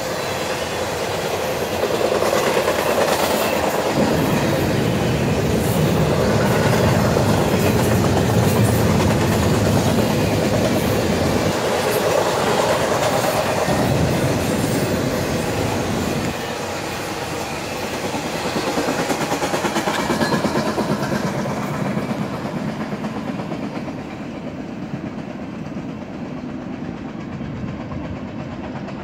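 Intermodal freight train cars rolling past close by: a steady rumble and clatter of steel wheels on the rails. It grows quieter and duller over the last few seconds.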